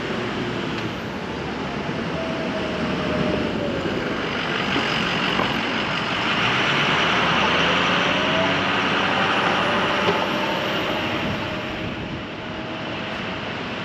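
Road traffic: a motor vehicle drives past, its noise swelling to a peak about halfway through and then fading.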